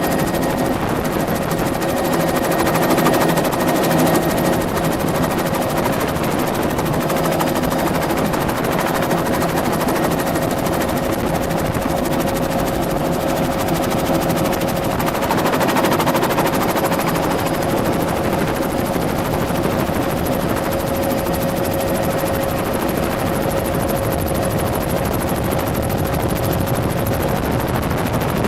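Tour helicopter in flight, heard from on board: a steady, loud drone of turbine and rotor noise with a constant whine held through it.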